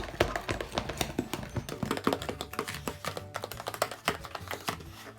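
Homemade glue and shaving-cream slime being stirred and worked: a rapid, irregular run of small sticky clicks and taps, several a second.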